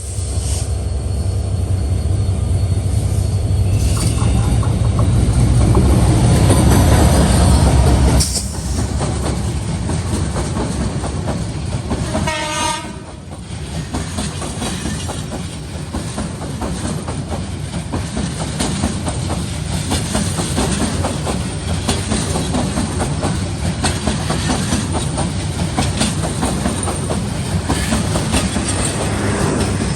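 Passenger train running: a heavy low rumble that stops abruptly about eight seconds in. Around twelve seconds in comes a short train horn blast, then the steady clatter of wheels over rail joints.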